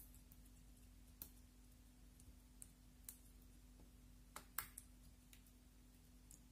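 Clear slime being pressed and poked with fingertips on a glass plate, giving an irregular scatter of faint, small sharp clicks and pops, the loudest pair about four and a half seconds in.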